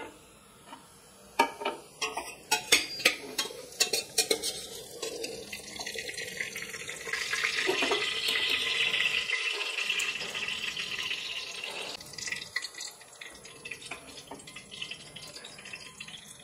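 Steel spoon scraping and clinking against the inside of a pressure cooker while fried onions are lifted out of hot oil. The oil sizzles for several seconds in the middle, then a few light clicks follow.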